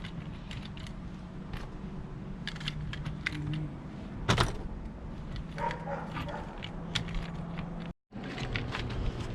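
Scattered light clicks and rattles of small plastic model-train pieces and toy figures being handled, with one louder knock about four seconds in, over a low steady hum. The sound cuts out for a moment near the end.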